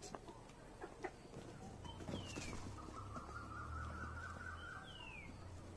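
Faint outdoor birdsong: a short whistle sliding downward in pitch twice, a few seconds apart, over a steady wavering trill, with a few faint clicks.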